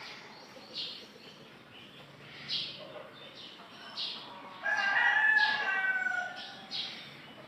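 A rooster crowing once in the background: one long call of nearly two seconds that falls slightly at the end. Faint short hisses come every second or two.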